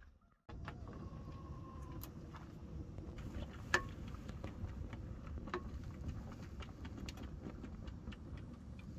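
Cooking-pot handling sounds: light clicks and two brief ringing metal clinks, about four and six seconds in, as boiled cabbage leaves are lifted from a metal pot onto an enamel plate. A steady low rumble runs under them and starts after a short silence.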